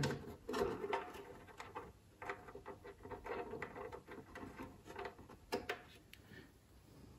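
Faint, irregular small clicks and scrapes of fingers handling a plastic model gun, working its pin through a hole in the plastic hull side.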